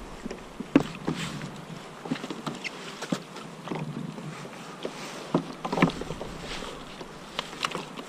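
Irregular knocks, taps and rustles as a landing net and a freshly caught bigfin reef squid are handled in a plastic sit-on-top kayak, with a couple of sharper knocks, one just under a second in and one near six seconds.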